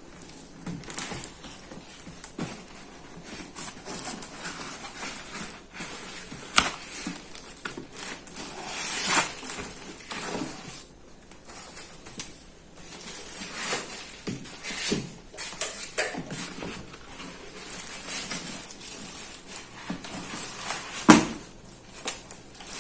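Soundbar packaging being handled during unboxing: styrofoam packing and plastic wrap rustling and crackling irregularly, with a few sharp knocks, the loudest near the end.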